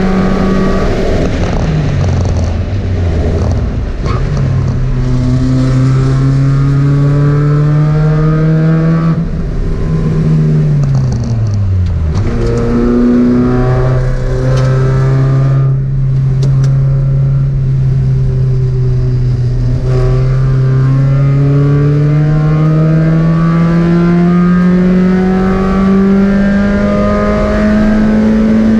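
Spec Miata race car's engine heard from inside the cockpit, working hard on track. Its pitch drops briefly near the start, falls steeply about twelve seconds in, jumps straight back up, then climbs slowly and steadily through the second half.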